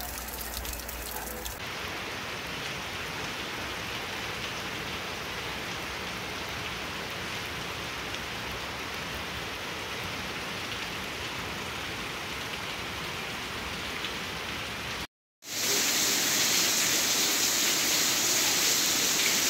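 Heavy rain falling steadily, an even hiss. It cuts out for a moment about fifteen seconds in and comes back louder.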